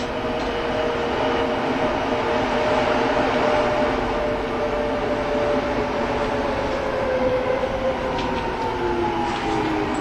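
Tram running along street rails: a steady rumble and rattle with a drawn-out whine that slowly falls in pitch.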